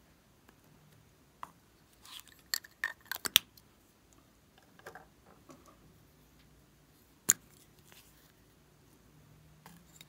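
Small plastic clicks and taps from handling lipstick tubes and their caps, a quick cluster about two to three seconds in and one sharp click about seven seconds in.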